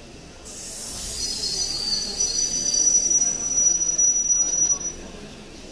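Indian Railways passenger coach wheels squealing against the rails, the flange squeal of wheels on a tight curve. It is a high screech with several steady shrill tones over the low rumble of the train. It starts about half a second in, grows louder, and fades out near the end.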